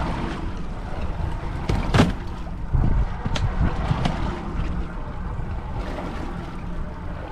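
Wind buffeting the microphone and sea water lapping against a small boat's hull, with a few sharp knocks about two and three seconds in.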